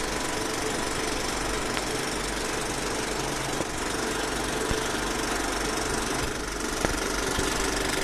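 Steady mechanical clatter and hum of a film projector running, with a fast even flutter and a few faint ticks.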